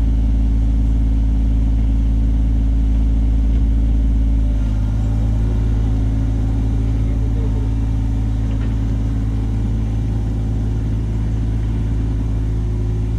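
John Deere 35G mini excavator's diesel engine running steadily, its low hum easing off slightly about four and a half seconds in.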